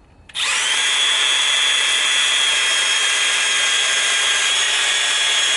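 Power drill spinning a wire fitting brush to clean out a copper solder joint socket before soldering: a steady high whine that starts about a third of a second in.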